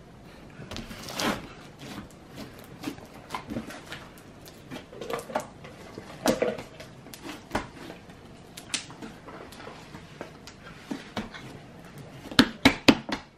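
Glitter slime being kneaded and pressed flat by hand on a table: soft squelches with irregular sharp clicks and pops as air is squeezed out of it, and a quick run of several loud pops near the end.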